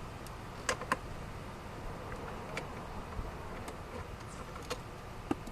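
A few light, scattered clicks and taps of a 7mm nut driver working the screws out of a plastic steering column shroud, over a steady low background noise.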